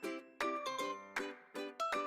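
Background music: a tune of quick plucked notes, each struck sharply and fading, several a second.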